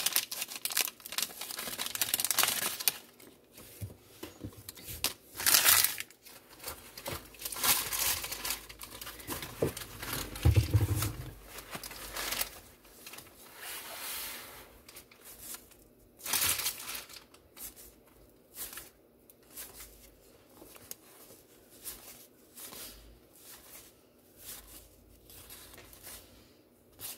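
Wax-paper baseball card pack wrappers crinkling and tearing in irregular bursts as packs are opened and cards handled, loudest in the first few seconds and again near the middle, with softer quick rustling later. A dull low bump about ten seconds in.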